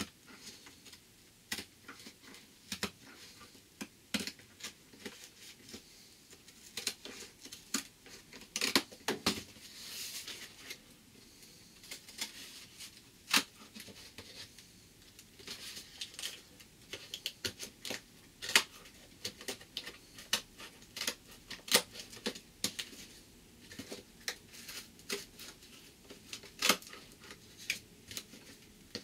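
Hand snips cutting sheet material in a run of short snips: irregular sharp clicks, a few a second, busiest around nine to ten seconds in.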